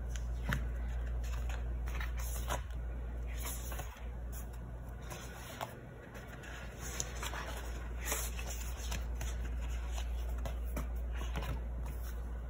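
Pages of a glossy sticker book being turned and handled: crisp paper rustles and flicks, over a steady low hum.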